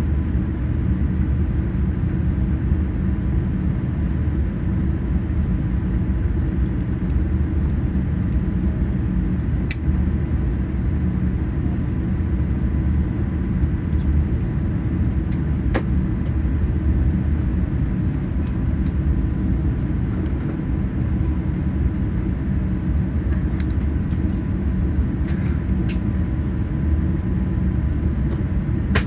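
Steady low rumble inside the cabin of a Boeing 787-9 airliner taxiing after landing, with a faint steady hum and a couple of small clicks.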